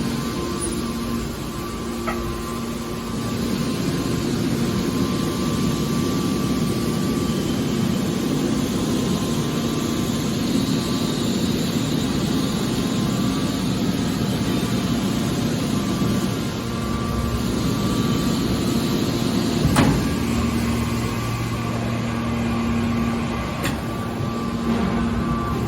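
Hydraulic scrap car baler running with a steady machine hum and whine, and a few sharp metallic knocks.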